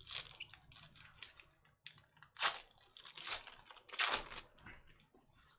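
Trading card pack being handled: the wrapper crinkles and the cards rustle irregularly, with three louder crinkles in the second half.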